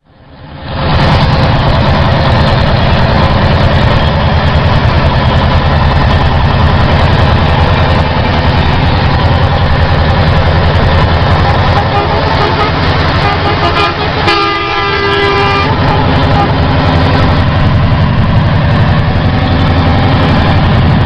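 Old FNM truck's diesel engine running at road speed, heard from inside the cab as a loud, steady low drone with road noise. About 14 seconds in, a horn sounds for about a second and a half.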